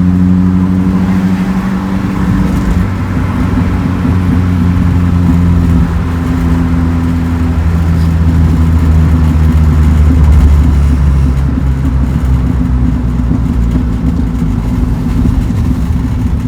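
Toyota KP30's carbureted 4K inline-four engine running through its new aftermarket exhaust while the car is driven: a steady, loud low drone with only small shifts in pitch.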